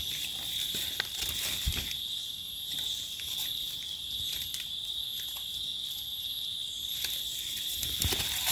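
Steady, high-pitched insect drone, with scattered crackles and rustles of dry leaf litter as mushrooms are picked out of it by hand.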